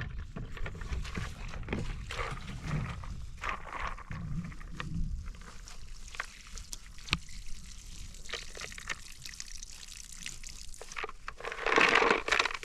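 Water being poured and splashing in uneven spurts, with a louder rush near the end.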